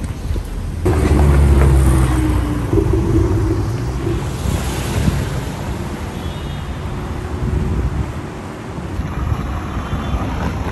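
Cars driving past on a city road. A loud, close engine comes in suddenly about a second in, its note dropping slightly as it goes, and another car rushes past a few seconds later.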